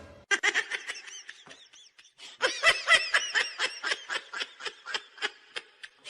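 High-pitched laughter: a quick run of giggles, about five bursts a second, loudest around the middle.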